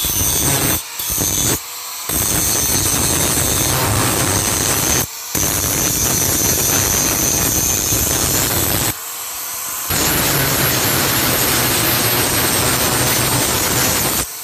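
Electric angle grinder with an abrasive disc grinding a steel machete blade: a harsh grinding noise with a steady high whine, breaking off briefly several times.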